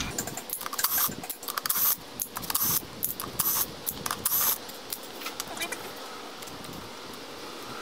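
A cordless drill-driver gives short whirs as it backs out the clutch pressure-plate bolts on a 2007 Honda CRF450R, with light metallic clicking and clinking of bolts and clutch parts. It is busiest in the first four seconds or so, then only quieter scattered clinks of parts being handled.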